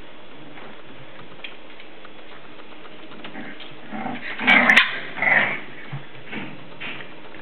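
Seven-week-old English Bulldog puppies play-fighting: a burst of short growls and yips about four to five and a half seconds in, with a few fainter ones after, over a steady hiss.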